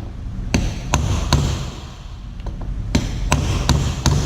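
Copper hammer striking a pin to drive it flush into a differential carrier: seven sharp metal-on-metal blows, a group of three and then, after a short pause, a group of four.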